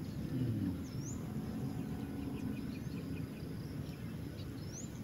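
Outdoor lakeside ambience: a steady low rumble with a few high bird chirps, two short rising chirps about a second in and near the end, and a brief run of quick ticks in the middle.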